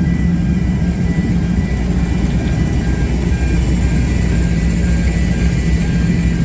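Diesel train engine running with a steady low drone, with a high electronic beeping tone repeating on and off over it.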